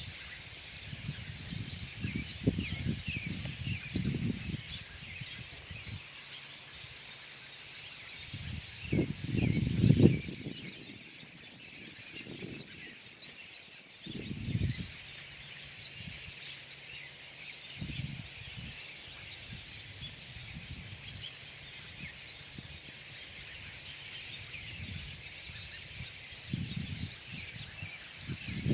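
A flock of birds feeding in a berry bush, chirping and calling constantly with many short overlapping high calls. Every so often a low rumble cuts in, loudest about nine to ten seconds in.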